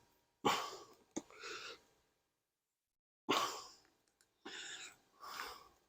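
A person's short, heavy breaths and sighs of effort, about five in a row, while prying a stuck wooden hive lid free, with a sharp click about a second in.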